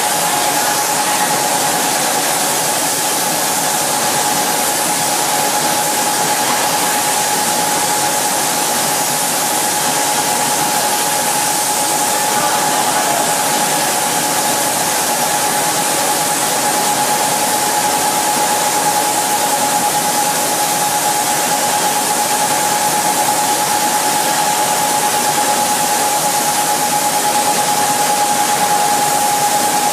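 Automatic spray booth running: a steady hiss of the spray guns and booth air as fluorocarbon coating is sprayed, with a constant mid-pitched whine through it.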